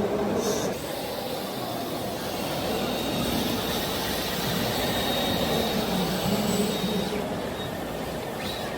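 Small electric motors of DIY RC model vehicles running with a steady whirring hum and a faint high whine.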